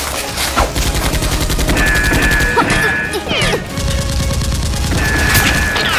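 Rapid automatic gunfire: a fast, continuous rattle of shots. A high steady tone sounds twice over it, with a few falling whistle-like glides.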